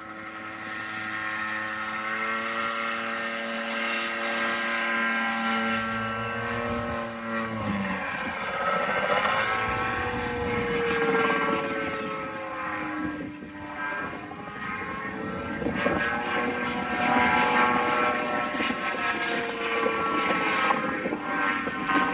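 Gyroplane's engine and pusher propeller droning as it flies aerobatic manoeuvres. The engine note holds steady for the first seven seconds or so, drops sharply, then keeps rising and falling in pitch.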